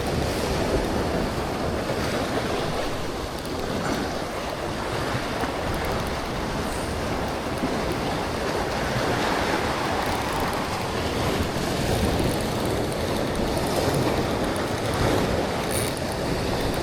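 Steady rush of ocean surf and tidal current at an inlet, an even wash of water noise with no distinct events.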